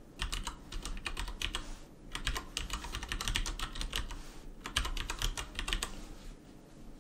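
Typing on a computer keyboard: quick, irregular key clicks in runs, with short pauses between them.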